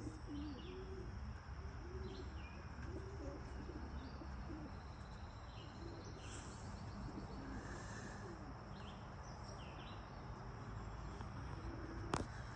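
Pigeons cooing, a low rolling coo repeated about once a second, with small birds chirping higher up and a steady high insect whine. One sharp click comes near the end.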